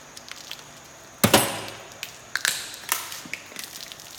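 Beer cans being shotgunned: a sharp crack and fizzing hiss as a can's tab is popped open, about a second in. Smaller cracks and clicks follow as the second can opens, with beer gushing out.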